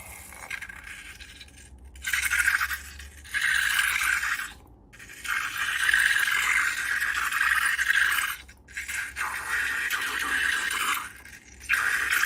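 Scraping and crackling of slime being worked, in about five strokes each one to three seconds long with short pauses between.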